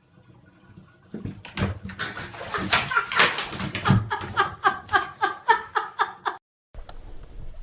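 A dog giving a rapid string of short, high yips or barks, about three a second, after a few seconds of scuffling noise; it cuts off suddenly.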